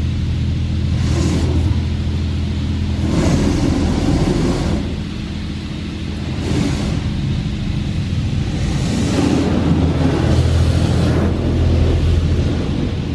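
Touchless automatic car wash heard from inside the car: a steady low machinery hum, with high-pressure water spray sweeping over the car in repeated surges.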